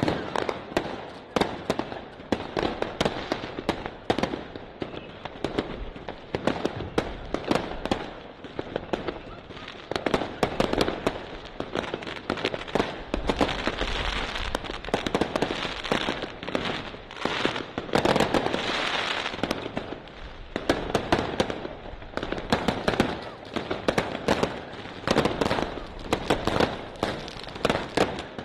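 A consumer firework compound box (cake) firing a rapid, continuous string of shots that burst with light reports, many cracks a second, swelling into denser volleys several times.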